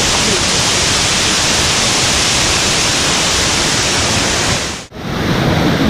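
Waterfall close by: the steady, loud rush and hiss of falling water. About five seconds in it cuts out sharply, then returns with less hiss.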